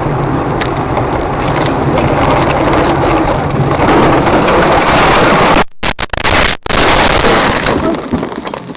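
Loud, steady rushing noise of a moving vehicle and its tyres on the road. It cuts out sharply a few times about six seconds in, then resumes.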